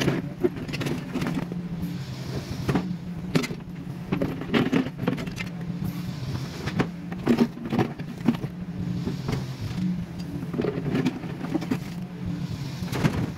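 Kubota mini excavator's diesel engine running steadily, with frequent irregular knocks and clanks from the machine at work.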